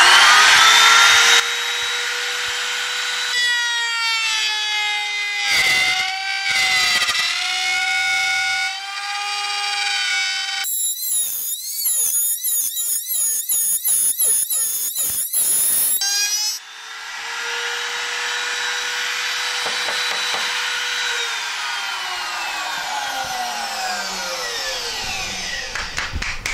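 Electric router mounted in a Craftsman router table running at full speed, its bit cutting a panel groove along poplar stiles: a loud, high steady whine with rough cutting noise as the wood is pushed through. About 21 s in it is switched off and the whine falls steadily in pitch as the motor spins down.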